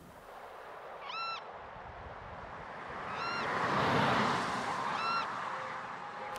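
Beach sound-effect ambience: surf noise swells and fades, with three short bird calls about two seconds apart.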